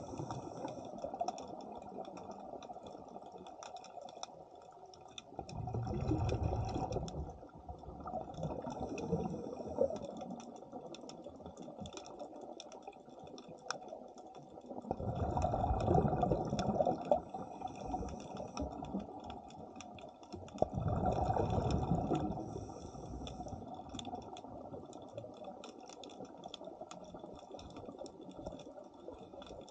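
Underwater sound of a diver's exhaled bubbles leaving the regulator in loud surges, about three of them, each lasting a second or two, several seconds apart, muffled through the camera housing. Faint scattered clicking between breaths.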